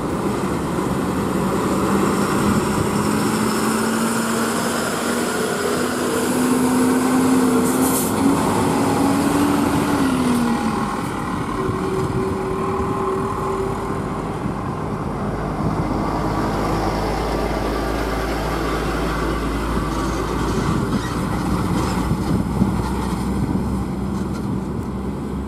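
Heavily loaded multi-axle lorries and a car driving past on a highway: diesel engines running and tyres rolling on the road surface. One engine's tone climbs slowly and then drops as a lorry goes by about ten seconds in.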